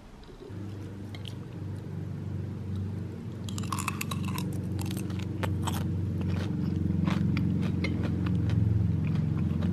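Close-up eating: crunching and chewing mouthfuls of mac and cheese mixed with Lay's potato chips, a spoon scraping the bowl, with crisp crunches from about three and a half seconds in. A steady low rumble runs underneath.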